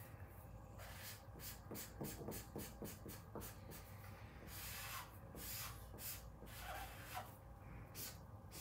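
Felt-tip marker rubbing back and forth on paper as an area is colored in: faint, scratchy short strokes, several a second.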